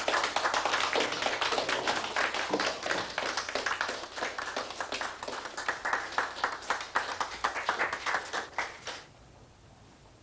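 A small group of people clapping their hands, dense and uneven, stopping abruptly about nine seconds in.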